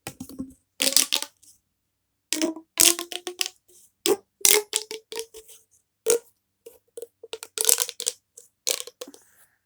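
Fidget toys being popped and handled: an irregular run of sharp pops and clicks, many with a short hollow ring.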